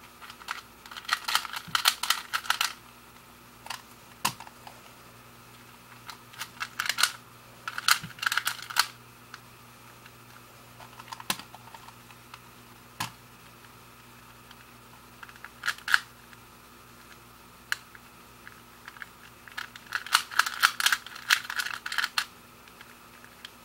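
A 2x2 puzzle cube being turned by hand while it is solved: plastic layers click and clack in several quick runs a second or two long, with lone clicks between.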